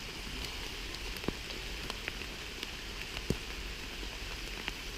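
Rain falling in a forest: a steady hiss of rain with single drops ticking irregularly, two of them louder, about a second and about three seconds in.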